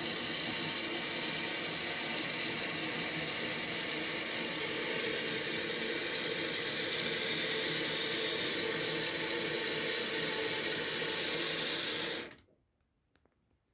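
Water rushing steadily into a toilet cistern through its newly fitted fill valve, a loud even hiss that stops abruptly about twelve seconds in.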